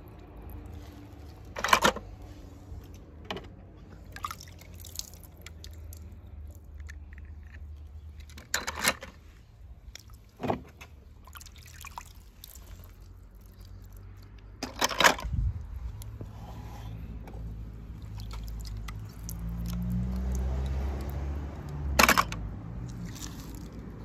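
Water dripping and splashing as die-cast toy cars are lifted out of a plastic tub of water. Several sharp clicks and knocks of the small metal cars being handled stand out above a steady low rumble.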